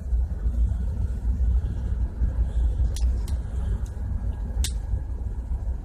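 Steady low rumble of shipboard machinery, with a few sharp metallic clicks of lubricator parts being handled, the loudest about two-thirds of the way in.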